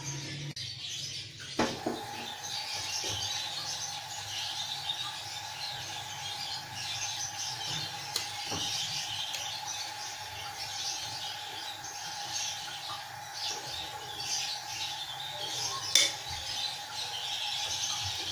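Paratha dough sizzling and crackling on a hot iron tawa. It starts just after a knock as the dough goes down, and there is one sharp click near the end.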